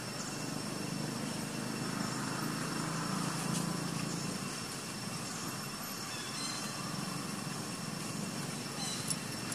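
A motor vehicle's engine running on a nearby road, swelling a little a few seconds in and then easing off.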